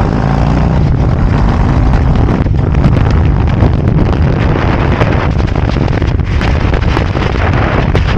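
Harley-Davidson Road Glide's V-twin engine running steadily at road speed, mixed with heavy wind rushing and buffeting over the microphone.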